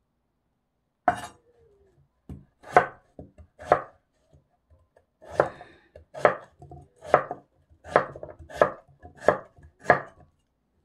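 Kitchen knife cutting radish on a cutting board into irregular soup pieces: about a dozen separate cuts, roughly one every second, each a sharp knock on the board.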